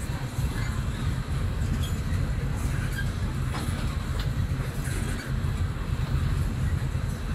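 Tank cars of a long freight train rolling past on the rails: a steady low rumble with a few sharp wheel clicks.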